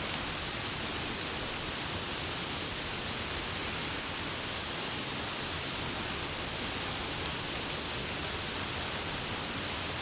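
Steady heavy rain falling: a dense, even hiss that holds at one level, with no thunder.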